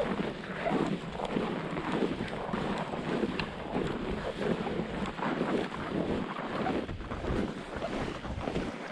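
Strong wind buffeting the microphone: a gusty, rushing noise that swells and dips irregularly.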